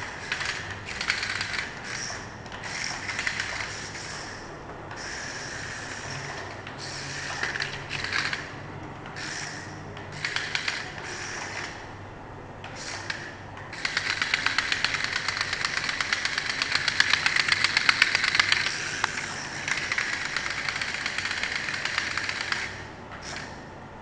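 Toy remote-control stunt car's small electric motor and plastic gears whirring in short bursts as it drives, then running without a break for about nine seconds in the second half.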